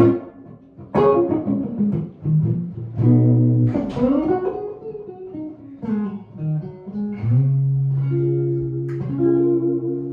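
1955 Gibson ES-295 hollowbody archtop electric guitar with P-90 pickups being played: picked single notes and chords, a note bent up and back down about four seconds in, and a low note left ringing over the last few seconds.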